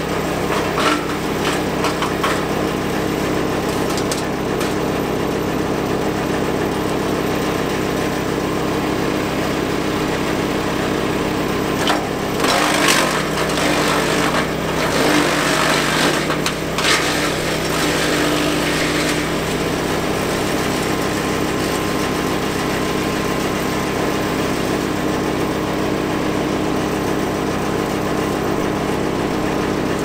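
Victory MDWC1500 wood chipper/shredder's 13.5 HP gas engine running steadily at working speed. About twelve seconds in, a loud crunching stretch of about five seconds as a hardwood limb is chipped.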